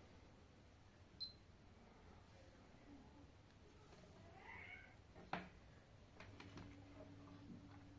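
Near silence: room tone. About halfway through there is a faint, short call that rises and falls in pitch, followed shortly by a single sharp click.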